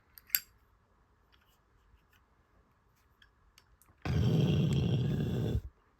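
Small clicks from a Zippo lighter case and its double-torch butane insert being handled, a sharp one just after the start. About four seconds in comes a loud rushing noise that lasts about a second and a half.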